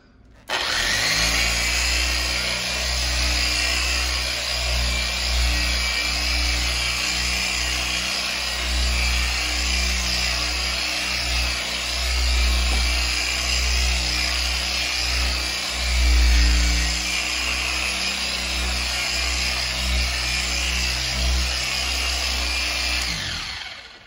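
Handheld power buffer with a foam pad running at a steady speed on a setting between 4 and 5, buffing polishing compound into a stainless steel fridge door. It starts about half a second in, gets briefly louder about two-thirds of the way through, and winds down just before the end.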